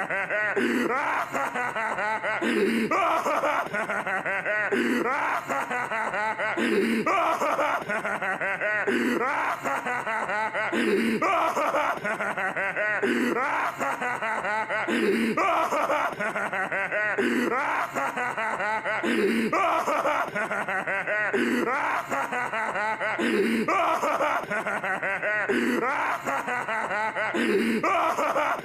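Plankton's cartoon laugh from SpongeBob SquarePants, played as a loop that repeats the same laugh about every two seconds.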